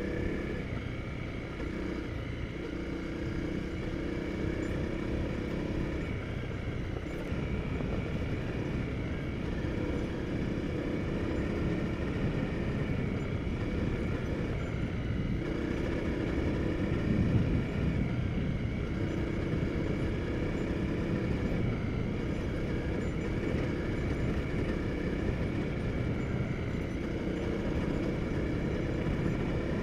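Honda CRF250L Rally's single-cylinder four-stroke engine running steadily under way on a sandy dirt track, heard from the bike's onboard camera. It grows briefly louder about seventeen seconds in.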